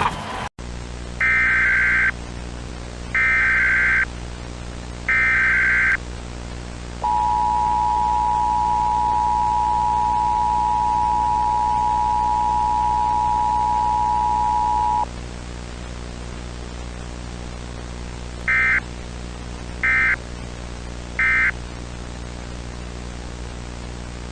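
Emergency Alert System alert tones: three one-second bursts of the SAME digital header, then the two-tone attention signal held steady for about eight seconds, then three short end-of-message data bursts. A steady hum and hiss runs underneath.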